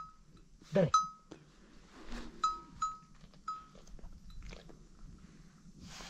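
Small livestock neck bells ringing in scattered single strikes, about six times, with one short bleat that falls in pitch about a second in.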